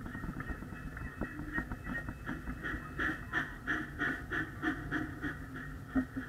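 Ride-on miniature backyard train running along its track: a quick, regular beat of breathy puffs, about three a second, over a low running rumble.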